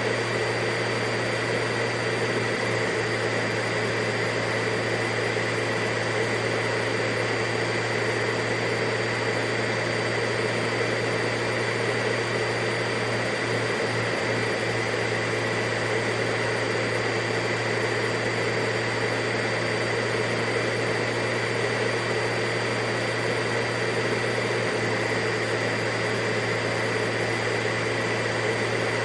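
Vacuum cleaner motor running steadily: a constant hiss of air with a low hum and a high whine, unchanging throughout.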